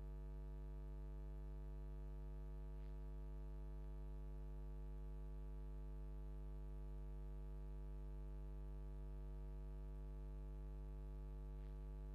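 Steady electrical mains hum, a low buzz with no change in pitch or level, and two faint ticks partway through.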